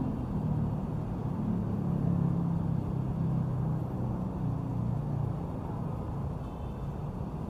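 Steady low rumble of outdoor ambience.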